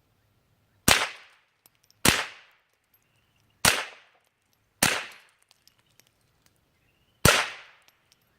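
Five .22 LR rifle shots, fired at irregular intervals of about one to two and a half seconds, each a sharp crack followed by a short fading echo.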